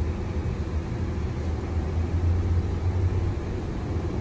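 Ineos Grenadier heard from inside the cabin, its engine and drivetrain giving a steady low rumble as it crawls in low range, held in first gear in manual mode.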